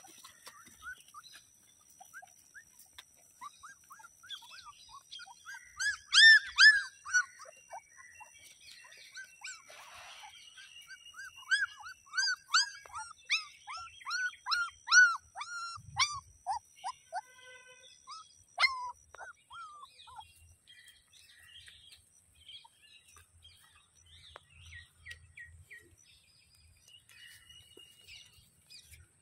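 Young puppies whimpering and yelping in short, high squeaks, many in quick succession. The cries come in bursts that are loudest about six seconds in and again from about twelve to fifteen seconds in, then thin out to scattered squeaks.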